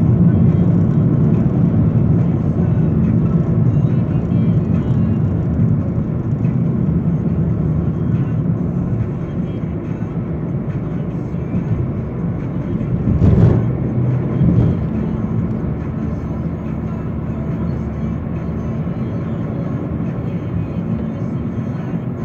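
Steady road and engine noise of a moving car heard from inside the cabin, a low rumble throughout, with one short louder swell a little past halfway.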